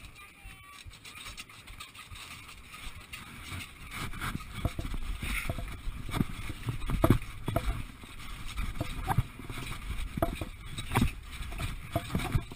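Rubbing and knocking noise on a body-worn action camera, getting louder about four seconds in, with irregular thuds of running footsteps on grass.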